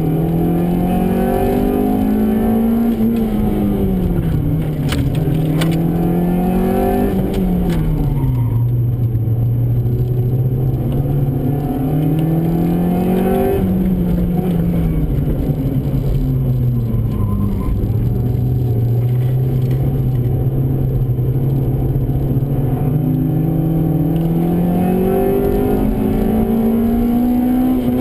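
Honda Civic's B16A2 1.6-litre DOHC VTEC four-cylinder engine heard from inside the cabin under hard driving. Its pitch climbs steadily under acceleration, holds, then drops sharply at lifts or gear changes several times.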